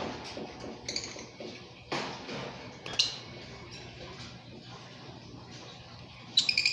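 Lovebirds giving short high chirps a few times, ending in a quick run of chirps, with a light knock or clink about two seconds in.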